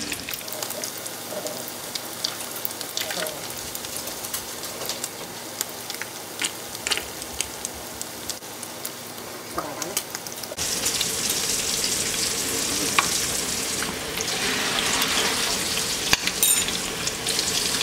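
Chicken flautas frying in hot oil in a skillet: a steady sizzle with scattered crackles, turning louder and fuller about ten seconds in.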